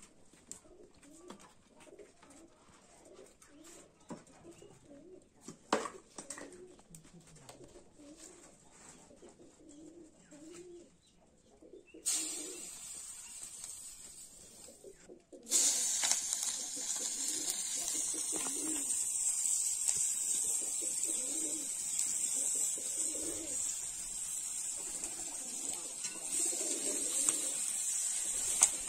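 Pigeons cooing over and over. From about twelve seconds in, oil in an iron wok sizzles as food fries, much louder from about fifteen seconds on.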